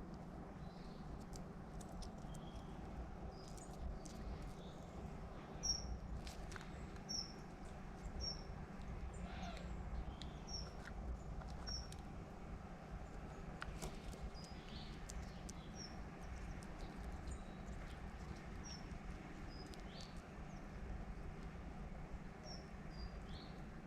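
Faint, short, high chirps from small birds, repeated roughly once a second, with a few light clicks over a low steady hum.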